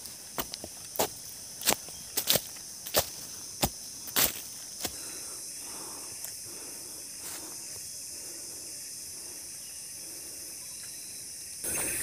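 A hiker's footsteps on an earth trail, about one and a half steps a second, for the first five seconds, then they stop. Under them runs a steady high-pitched chorus of forest insects, which grows louder and hissier just before the end.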